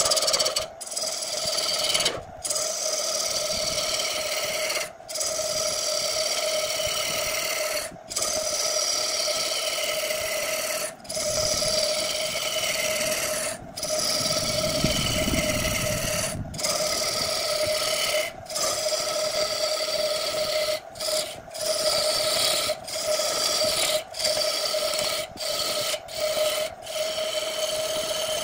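Wood lathe spinning a wooden vase blank while a hand-held gouge cuts into it: a steady hum under a rough scraping cutting noise, with a heavier cut about halfway. The sound drops out for an instant every couple of seconds.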